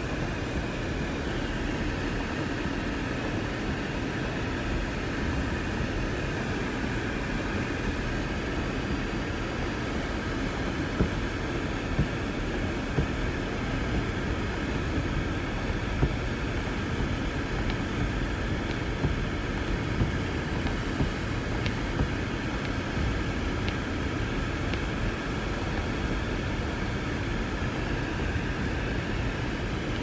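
Blizzard wind blowing hard and steadily: a continuous rush with a deep rumble and faint whistling tones above it. A few light ticks come through in the middle.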